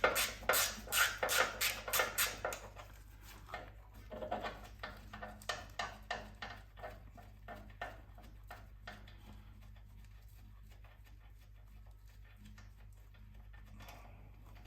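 Ratchet wrench clicking in quick repeated strokes as a fastener on the front strut assembly is undone, loudest for the first few seconds, with a second burst about four seconds in and fainter clicking after.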